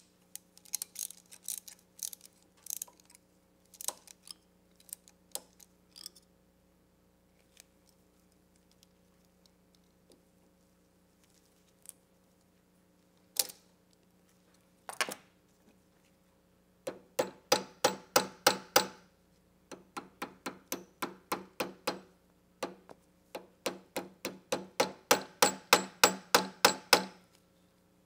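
Metal clicks and taps from a steel band clamp being tightened and finished on a rubber CV axle boot with a banding clamp tool. There are scattered clicks at first; from a little past halfway come rapid runs of sharp, ringing metallic taps, several a second, that grow louder near the end.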